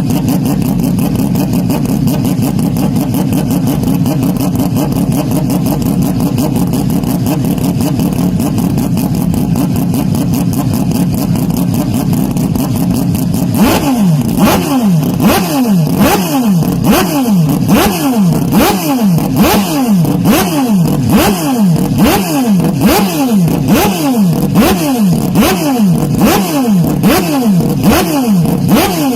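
Motocross bike engines running on the track: a dense, steady drone of several bikes at first. From about halfway, a series of rising revs, about one a second, with sharp crackles as bikes accelerate hard.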